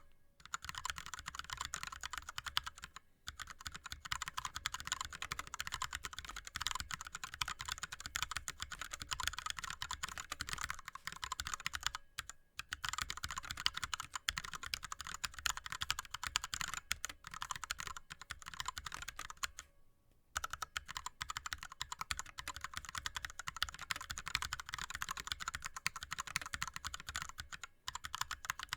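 Fast, continuous typing on an ErgoDox split mechanical keyboard with Cherry MX Red linear switches and blank DSA keycaps: a dense run of key clicks and clacks, with brief pauses about 3, 12, 20 and 28 seconds in.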